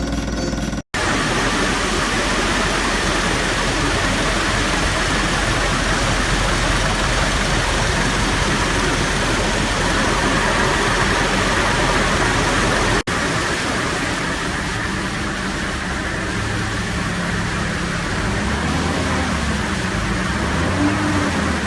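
Mitsubishi Triton's 4D56 four-cylinder diesel engine running, a loud steady noise, cut off for an instant twice.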